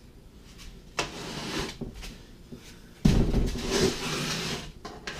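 A light click about a second in, then a sudden thump at about three seconds and nearly two seconds of scraping as a desktop 3D printer is turned and slid across a wooden tabletop.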